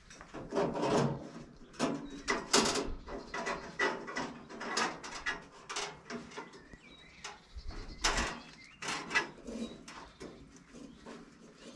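A steel band-saw blade being worked onto the blade wheels of a Frontier OS27 portable sawmill by hand: irregular clanks, rattles and scrapes of the metal band, a tight fit.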